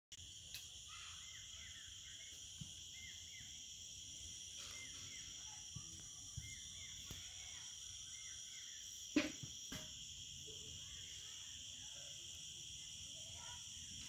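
Steady high chorus of insects, a continuous shrill trilling, with short chirps over it in the first half. A few soft knocks, the loudest a sharp knock about nine seconds in, followed by a second just after.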